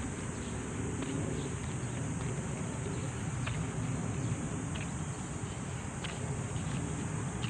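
Insects droning steadily in high-pitched trees, over a low rumble, with a few faint short chirps or ticks scattered through.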